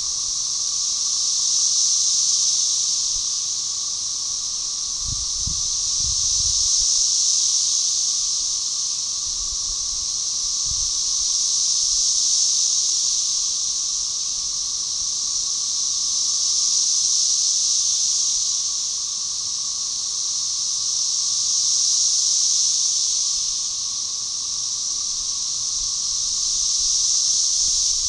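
A chorus of 13-year periodical cicadas (Magicicada tredecassini) calling in synchrony: a high, dense buzz that swells and fades together about every five seconds. Beneath it runs the steady, lower drone of Magicicada tredecim.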